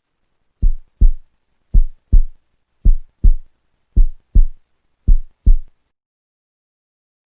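Heartbeat sound effect: five deep lub-dub double thumps at about one beat a second.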